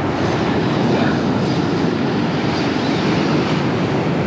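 Steady rushing noise of wind buffeting the microphone together with surf breaking on the shore.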